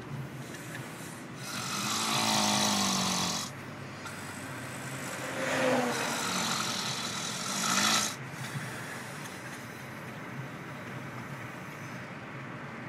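A man snoring heavily: two long, loud snores, each two to three seconds, the second ending in a rise in pitch.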